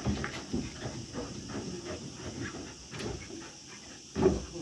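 A pack of excited German shepherds and Belgian Malinois jumping up and milling about, making dog sounds throughout, with one louder burst about four seconds in.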